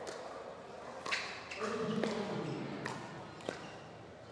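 Pickleball paddles hitting the plastic ball back and forth in a rally, a sharp pock about once a second.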